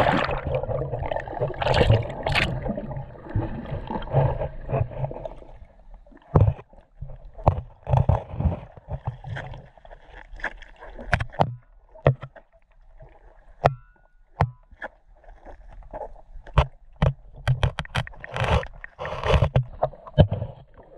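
Muffled underwater sound picked up by a camera held under the water. A dense rush of water noise fills the first few seconds, then irregular sharp clicks and low knocks follow.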